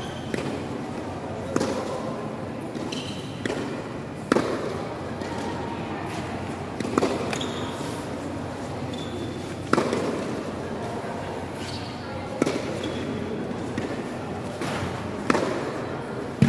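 Tennis balls struck by rackets and bouncing on an indoor hard court, sharp pops every second or two, each echoing briefly in the large hall, with voices chattering in the background.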